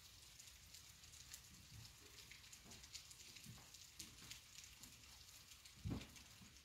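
Faint steady rain, with scattered drops ticking close by and one louder low thump about six seconds in.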